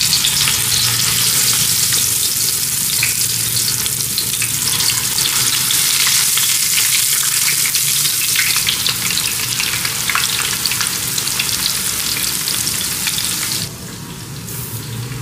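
Masala-coated fish pieces frying in hot mustard oil, a steady dense sizzle and crackle just after they have gone into the pot flesh-side down. About 14 seconds in it drops to a quieter sizzle.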